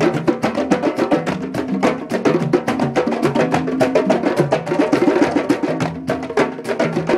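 Drum circle of congas and other hand drums played together in a fast, dense rhythm, many strokes a second over low, pitched drum tones.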